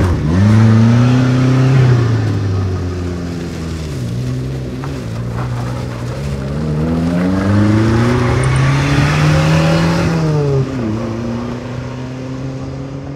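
Subaru Sambar kei truck's small engine revving hard under acceleration. Its pitch climbs and drops back several times as it is driven through the gears.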